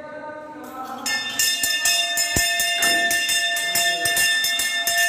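Brass temple hand bell (ghanta) rung rapidly in steady, continuous jangling strokes, starting about a second in. Chanting is heard before the bell begins.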